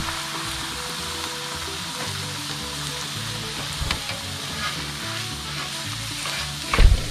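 Omelette eggs sizzling in a hot pan over a campfire, with a small click about four seconds in and a loud knock near the end.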